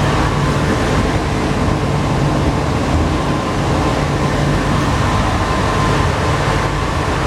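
Alstom NS-93 rubber-tyred metro train running at steady speed: continuous rolling noise with a steady high tone and a low hum underneath.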